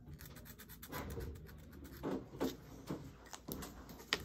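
Felt-tip marker scratching and rubbing on paper in short repeated strokes as the horn is coloured in, with a sharp click near the end.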